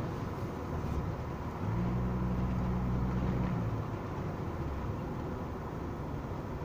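Car engine and road noise heard from inside the cabin while driving. A low engine hum grows louder from about two seconds in and eases off about a second and a half later.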